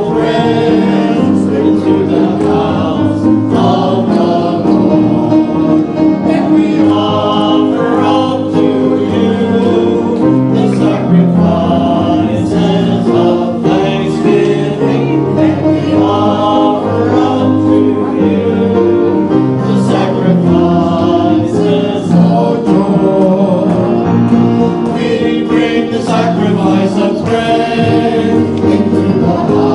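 Small mixed choir of men and women singing a gospel hymn as the offertory, with piano accompaniment.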